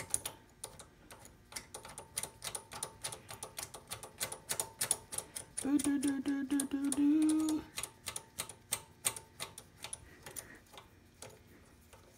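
Small metal nuts clicking and ticking as they are spun by hand onto the carburetor intake studs of a Predator 212cc engine, several light clicks a second. About six seconds in, a low hummed tone from a man's voice lasts about two seconds and is the loudest sound.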